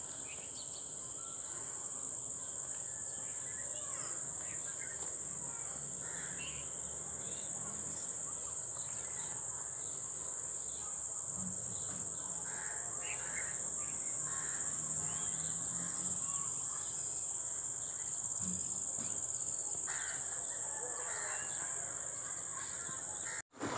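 Steady, high-pitched insect chorus over farm fields, with scattered short bird calls through it. It cuts out for a moment just before the end.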